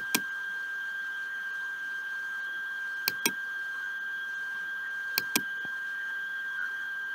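Pairs of quick computer-mouse clicks, one pair about every two to three seconds, over a steady high-pitched electronic whine.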